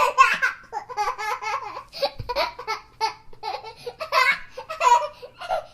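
A baby laughing in short, high-pitched bursts, several a second, in runs broken by brief pauses.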